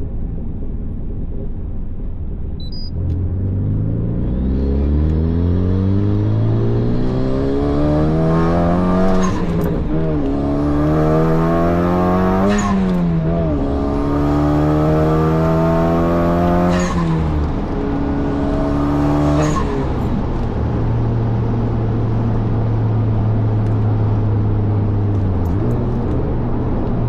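Honda Civic Type R FL5's turbocharged 2.0-litre four-cylinder accelerating through several gears, its pitch climbing in each gear with a high whistle over the middle pulls. At each gear change the turbo flutters with a quick 'stututu' on lift-off, and from about twenty seconds in the engine settles to a steady low drone.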